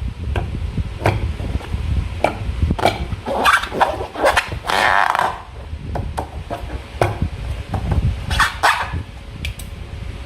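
Hands squishing and working slime, with irregular wet squelches and sharp clicks over a low handling rumble.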